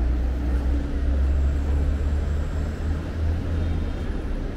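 Outdoor city ambience: a steady low rumble of distant traffic with a faint hiss above it.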